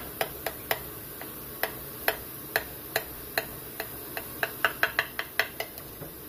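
Metal spatula clicking and tapping against a glass baking dish as a piece is cut and lifted out: about twenty short, sharp clicks at an uneven pace, coming faster about four and a half seconds in.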